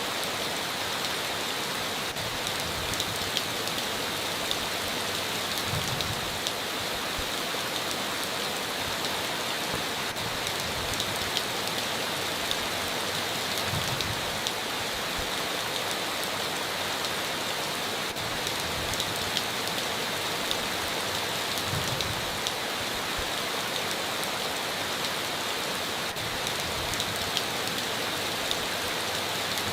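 Heavy rain falling steadily, with many individual drops ticking through the hiss. A short, soft low thud comes about every eight seconds.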